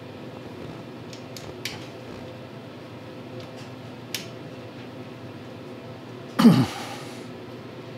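Faint metallic clicks and taps as the mounting bolts of a snowblower's electric starter are turned in by hand, over a steady low hum. About six and a half seconds in comes one short, louder sound that falls in pitch.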